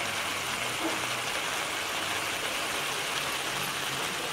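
Chicken fry sizzling in an uncovered pan, a steady hiss as a cloud of steam pours off the cooking masala.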